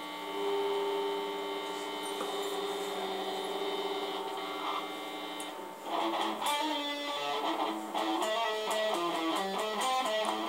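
A steady electrical hum with a held tone, then guitar music starts about six seconds in and carries on, a rhythm of changing plucked notes.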